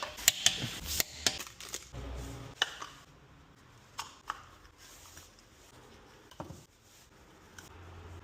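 Tools and parts being handled during car servicing: a quick run of sharp clicks and knocks for about three seconds, then a few single clicks further apart.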